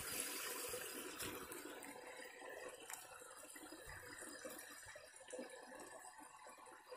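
Faint running water from a rocky stream, a steady hiss that slowly fades, with a few small clicks.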